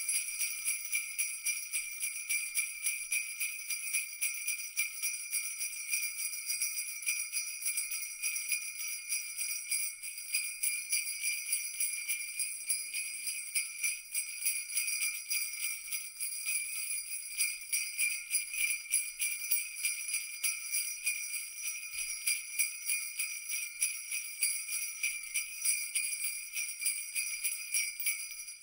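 A bunch of jingle bells shaken continuously in a fast, even rhythm, a steady bright jingling.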